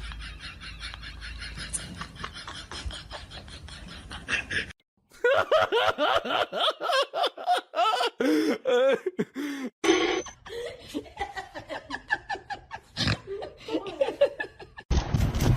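Music, then after a sudden cut a person laughing in short repeated bursts, followed by scattered short sounds.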